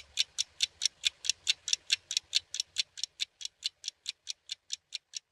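Clock ticking sound effect: a quick, even run of sharp ticks, about five a second, slowly growing fainter.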